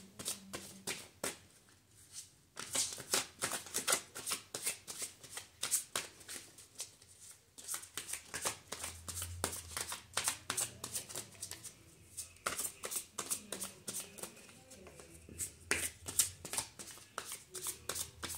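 A deck of tarot cards being shuffled by hand: a quick, irregular run of soft card-on-card flicks and slaps, with short pauses about two, seven and twelve seconds in.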